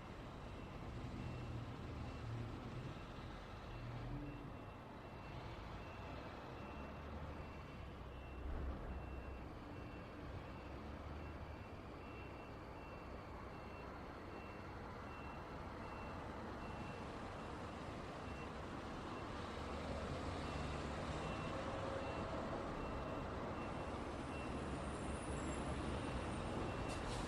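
Steady road traffic passing, growing a little louder over the last several seconds, with a faint high-pitched electronic beep repeating at an even pace throughout.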